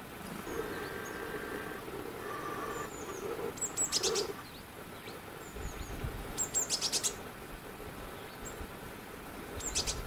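Small forest birds calling with short high chirps and a few quick rattling trills, about four seconds in, around six and a half seconds, and again near the end. A steady low hum sounds under them for the first four seconds.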